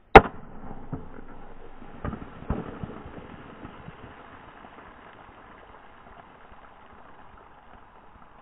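A .22 LR CCI Mini Mag hollow-point bullet bursting a full Pepsi can right beside the microphone: one sharp crack just after the start, then soda fizzing and spattering out of the torn can, fading over several seconds. A few smaller knocks come about one and two seconds in.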